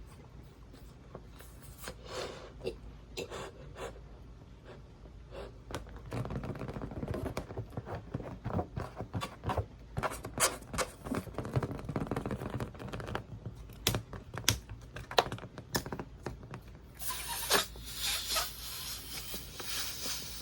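A rubber balloon being blown up by mouth and handled: puffs of breath, rubbing and clicking of the rubber, and a longer rush of air about three seconds before the end.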